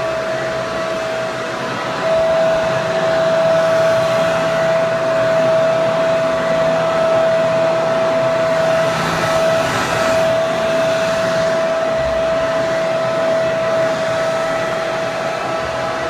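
Hair dryer running steadily: a loud, even rush of air with a steady whine from the motor and fan. It gets a little louder about two seconds in.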